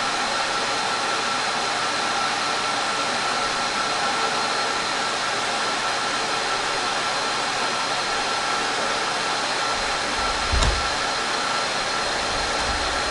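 IBM rack server and its attached SAS disk array running, their cooling fans giving a steady loud whoosh, a racket, with faint steady whines in it. A single low thump about ten and a half seconds in.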